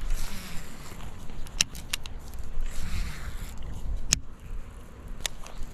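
Wind rumbling on the microphone, with a few sharp clicks from a baitcasting reel being handled during a cast and retrieve.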